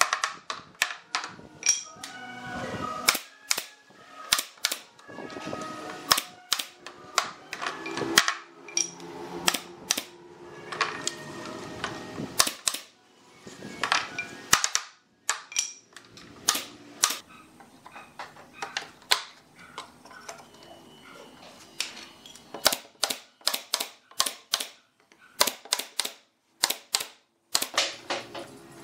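Air-powered brad nailer firing nails into pine boards: many sharp shots, often several in quick succession. Background music plays underneath.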